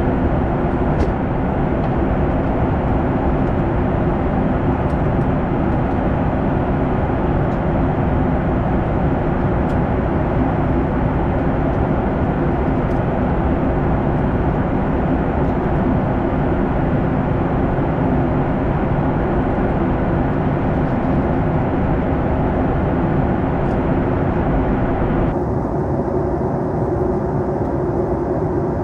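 Steady cabin noise inside a Boeing 737 MAX 9 in flight: a loud, even rush of engine and airflow noise with a low hum under it. About 25 seconds in, the highest part of the hiss drops away abruptly.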